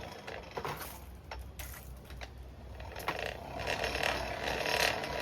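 Forge blower driving air into the fire pot to bring the fire up to welding heat, with a mechanical, gear-like whirring and rattle. It is fainter at first and grows louder about three seconds in.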